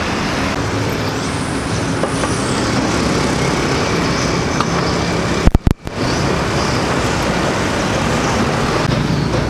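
Steady roadside traffic noise from passing motor vehicles. A little past halfway there is a brief loud crackle with a moment of dropout.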